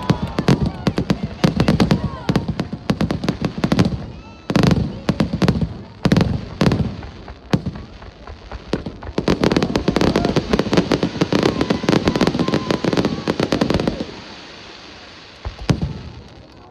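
Fireworks display going off: dense crackling and rapid sharp bangs in two long loud stretches, thinning to a few single bangs near the end.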